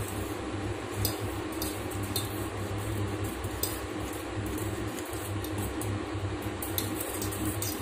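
Small whisk scraping and clinking against a stainless steel bowl as dry flour, sugar and cocoa powder are stirred together, with scattered sharper clinks. A steady low hum runs underneath.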